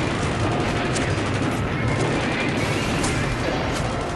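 Battle sound effects: a dense, steady din of gunfire with a few sharp single shots standing out.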